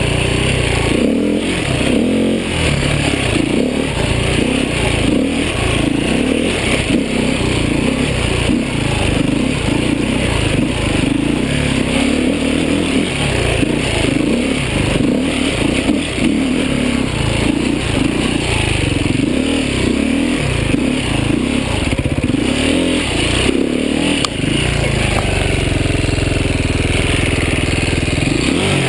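Beta 450 RR's four-stroke single-cylinder engine running under a rider's throttle on a rough trail, its pitch and loudness rising and falling repeatedly, with occasional knocks from the bike over rocks. From about 25 seconds in it settles into a steady, even run.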